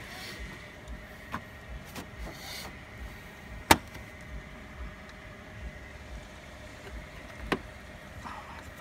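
Plastic grille and radiator-support trim being handled, giving a few sharp clicks and knocks, the loudest about halfway through and another near the end, over a faint steady hum.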